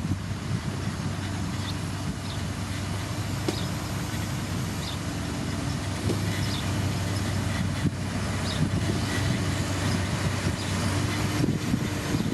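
Diesel engine of heavy road-building machinery running steadily under load, with scattered faint clicks.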